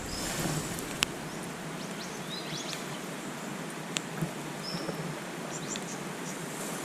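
Steady rushing hiss of river water running over rocks, with a few short high bird chirps and two sharp clicks, about a second in and about four seconds in.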